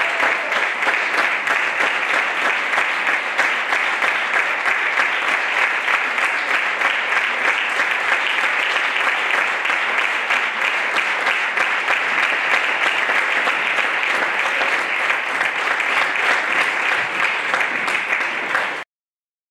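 Audience applauding in a hall, a steady, dense ovation of many clapping hands that cuts off abruptly near the end.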